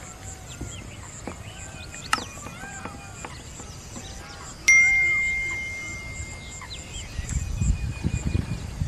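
A single bell-like ding about halfway through, ringing on one steady tone and fading over about two seconds: the notification sound effect of an on-screen subscribe bell. It plays over birds chirping and an insect's evenly pulsing call, with low thumps near the end.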